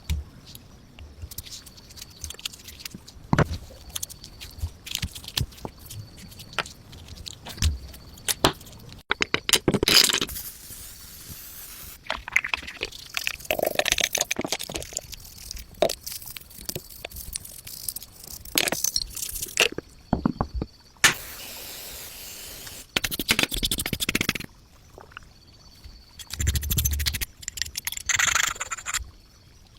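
Tools working small metal parts: scattered sharp clicks and taps, broken by several bursts of scraping a second or a few seconds long, and a steady hiss lasting about three seconds past the middle.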